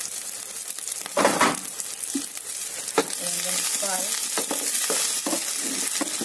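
Raw long-grain rice sizzling as it fries in hot coconut oil, stirred and scraped around the pot with a wooden spatula. There is a louder rasp of grains a little after a second in, then quick repeated scraping strokes in the second half over a steady sizzle.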